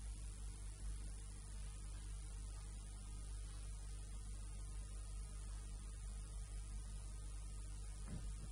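Steady electrical mains hum with a low hiss, unchanging throughout.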